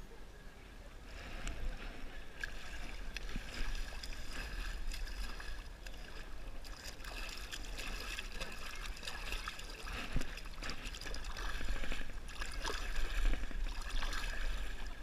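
A hand paddling and splashing through river water close to the microphone, with a steady run of small splashes and water sloshing.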